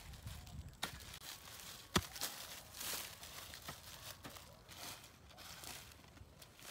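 Hand hoe chopping into soil and dry sugar cane leaves, with crunching and rustling. The loudest strike comes about two seconds in, with a smaller one about a second in.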